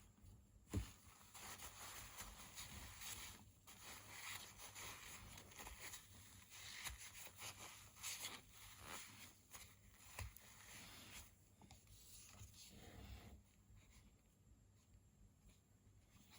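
Faint, irregular rustling and scraping of alcohol-dampened tissue wiping grime off the parts of a disassembled Rockstead Higo II folding knife, with a few light knocks.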